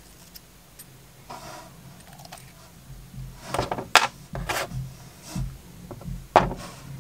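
Small sharp clicks and taps from handling a CO2 laser's metal lens holder and its threaded retaining ring, freeing the focus lens; they start about halfway, over a faint steady low hum.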